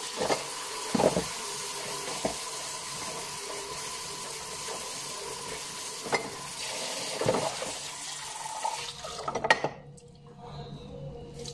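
Kitchen tap running into a sink basin while glass dishes are washed by hand, with several short clinks of glassware against the basin. The running water quietens about nine and a half seconds in.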